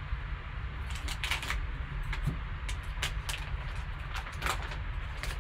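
Foil card-pack wrapper crinkling as gloved hands open it: irregular crackles, some in quick clusters, over a steady low hum.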